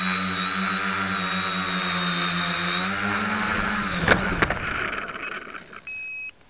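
SK450 quadcopter's electric motors and propellers humming steadily in a hover, heard through a camera fixed to the frame. About four seconds in, it touches down with two sharp knocks and the motors wind down, and a short electronic beep sounds near the end.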